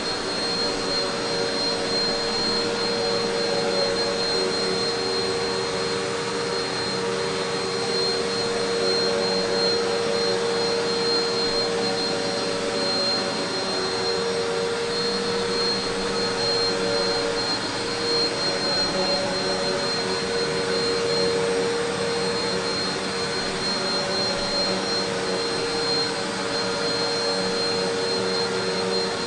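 Eureka PowerSpeed Pro Swivel Plus bagless upright vacuum cleaner running steadily, with its motor's hum and a thin, high, steady whine.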